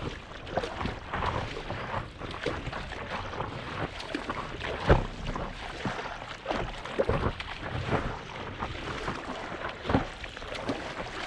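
Small waves slapping and splashing against the nose of a stand-up paddleboard as it moves through choppy sea, heard at the board's surface. Irregular sharp slaps over a hiss of moving water, the loudest about five seconds in and again near ten seconds, where spray comes over the nose.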